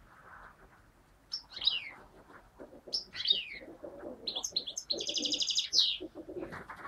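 Caged European goldfinch singing: short twittering phrases, then a longer run of notes ending in a fast trill.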